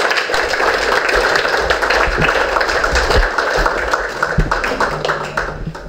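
Audience applauding: many hands clapping together, easing off near the end.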